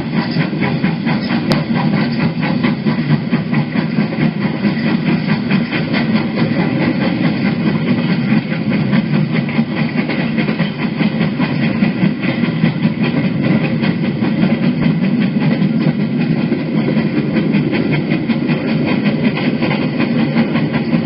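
Preserved GWR Hall-class 4-6-0 steam locomotive Hagley Hall under way with its train, a steady, dense running sound with a fast, even beat.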